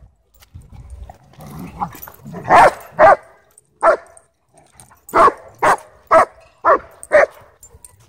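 A dog barking in short barks: a pair about two and a half seconds in, one near four seconds, then a run of five about half a second apart.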